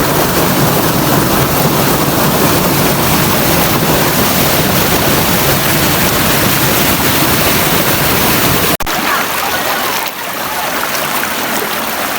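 Loud, steady rush of water from a waterfall. About nine seconds in it cuts off suddenly to a quieter, thinner water sound.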